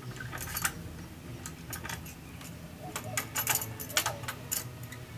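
Irregular sharp metallic clicks and clinks of a wrench on the rear axle and chain-adjuster nuts of a motorcycle as the rear wheel is being secured.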